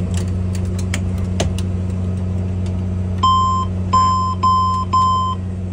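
Steady low drone of the Saab 340's turboprop engine noise with a few sharp clicks from the cockpit levers, then a cockpit warning tone beeps four times, the first longer and the next three short and close together, as the warning lights come on after an engine is shut down with its condition lever on takeoff.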